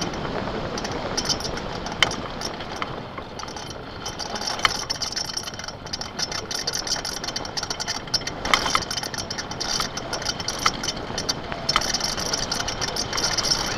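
Homemade downhill gravity cart rolling fast over asphalt: a steady rumble of wheels and rushing air, with sharp knocks and rattles from bumps about 2 s, 4.5 s, 8.5 s and 12 s in.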